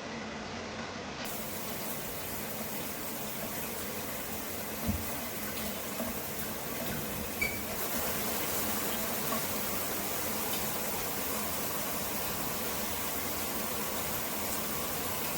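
Water spraying steadily from a handheld shower head, with a faint knock about five seconds in.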